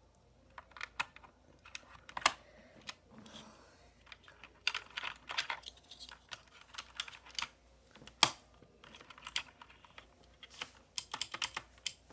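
Mechanical keyboard switches pressed and released over and over, apparently without keycaps, giving irregular sharp clacks with quick flurries of rapid presses around the middle and near the end. The single loudest clacks come a little after two seconds and about eight seconds in.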